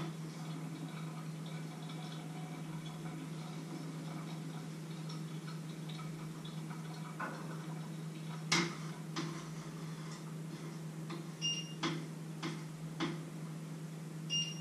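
Clinks and knocks of kitchen utensils and pots, a series of sharp strikes starting about halfway through, some with a short metallic ring, over a steady low hum.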